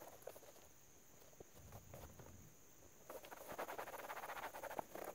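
Cloth rag scrubbing a molded plastic truck door panel: faint, quick rubbing strokes that grow louder from about three seconds in.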